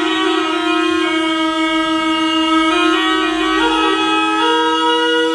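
Ancient Greek aulos (double reed pipes) playing: one pipe holds a steady drone while the other plays a slow melody of sustained notes, stepping higher near the end.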